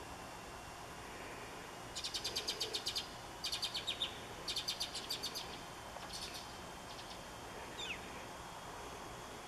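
A small songbird singing: a run of quick, high trills in several phrases, each up to a second long, then a single short falling whistle near the end, over a faint steady hiss.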